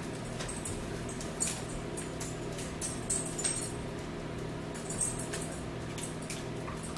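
A few short crinkles and clicks from a plastic water bottle being handled and opened, over a steady low hum in the room.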